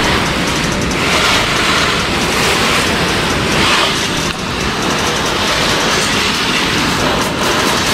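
Steady rushing hiss of soapy water spraying over a car during a hand wash.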